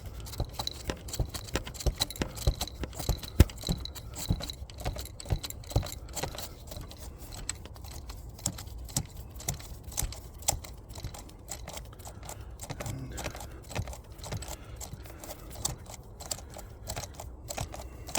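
Small metallic clicks and clinks from a socket and tools as the oil pressure switch is wound out of the Ford 1.8 diesel's cylinder head, the clicks coming irregularly throughout.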